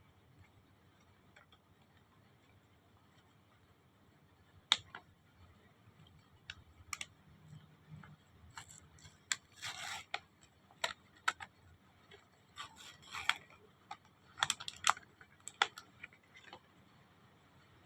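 Hands handling a skincare parcel and its contents: scattered sharp clicks and taps mixed with short bursts of rustling packaging, starting about five seconds in.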